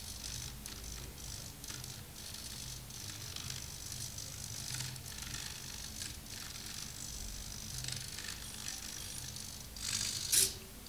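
Small hobby servo motors of a laser time-writing clock whirring in short, irregular bursts as they swing the plotter arms to trace the time, with a louder sharp burst about ten seconds in.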